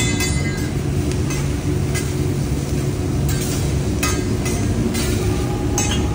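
Metal hibachi spatula clinking and scraping against a steel teppanyaki griddle a handful of times as vegetables are pushed and chopped, over a steady low rumble.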